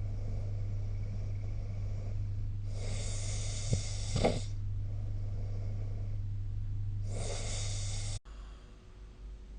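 A sleeping person snoring: a noisy drawn-in breath about three seconds in ending in two short snorts, and another breath about seven seconds in, over a steady low hum. Just after eight seconds everything cuts off abruptly and what follows is quieter.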